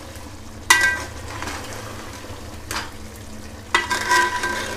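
Metal ladle stirring mutton frying in ghee and yogurt in an aluminium pot, with a steady sizzle underneath. The ladle knocks against the pot three times, the louder knocks about a second in and near the end ringing briefly. The mutton is at the bhuna stage, being fried until the yogurt's water cooks off.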